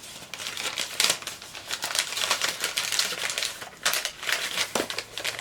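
Wrapping paper being handled and crumpled: a dense run of quick, irregular crinkles and crackles.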